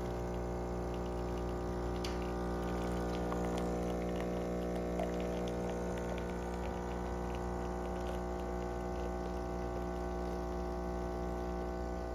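Jura A1 espresso machine brewing a large cup: its pump hums steadily while coffee streams into a mug, with faint light ticks of the liquid.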